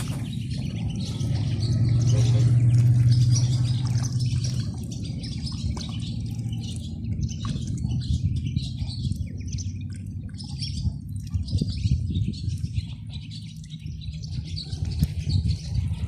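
Ducklings peeping, many short high chirps one after another, over a low steady rumble that swells a couple of seconds in.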